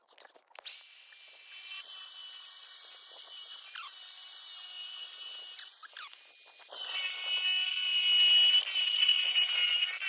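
Power tool running with a steady high-pitched whine, growing louder about seven seconds in.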